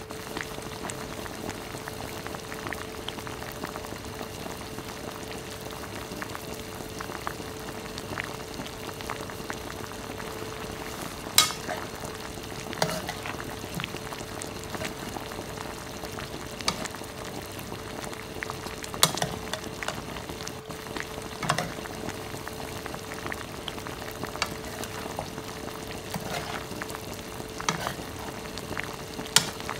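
Raw chicken pieces frying gently over low heat in a pan, a steady crackle and sizzle, under a faint steady hum. A spatula knocks and scrapes against the pan several times in the second half as the chicken is stirred.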